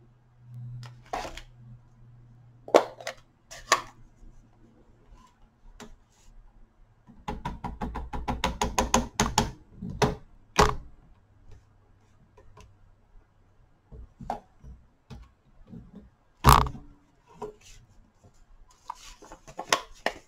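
Hard plastic clicks and knocks from a Stamparatus stamp-positioning tool as its hinged clear plate is swung and pressed down to stamp an envelope. About a third of the way in comes a rapid run of about twenty quick taps, nearly ten a second, and a sharp single knock follows past the middle.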